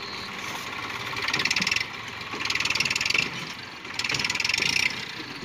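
Massey Ferguson 1035's diesel engine labouring under load, its clatter swelling three times as the throttle is pushed. The tractor is stuck in wet mud with a heavily loaded trailer behind it and is trying to pull free.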